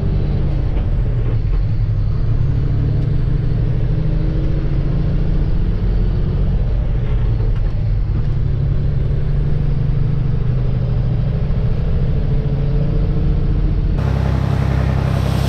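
Grain truck's engine running steadily while driving, a low, even hum. Near the end it gives way abruptly to a loud, steady hiss.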